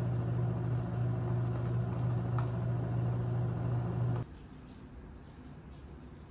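A machine's steady low hum that cuts off suddenly about four seconds in.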